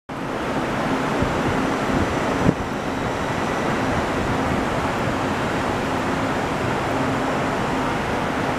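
JR Central 211 series electric train drawing slowly into a platform, with a steady running noise of wheels on rails and a faint hum. A single sharp clack comes about two and a half seconds in.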